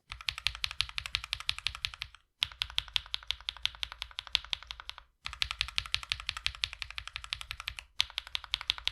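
Rapid typing on a mechanical keyboard fitted with Akko CS Matcha Green linear switches, in a lubed-versus-unlubed sound test: the stock switches sound higher pitched with spring ping, the hand-lubed ones deeper with no ping. The typing comes in short runs broken by brief silences about two, five and eight seconds in.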